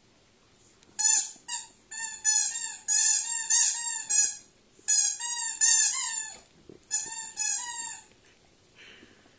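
A squeaky dog toy squeaking rapidly over and over as a Welsh springer spaniel chews it. The squeaking begins about a second in, comes in several bursts with brief pauses, and stops near the end.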